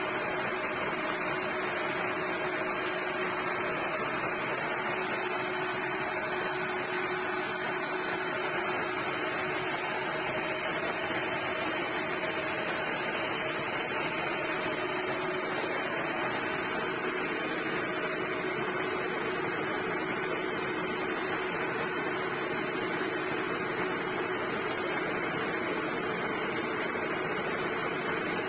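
Straight-line steel wire drawing machine running at speed: its drawing-block capstans and drive motors give a steady, even drone with a couple of held hum tones.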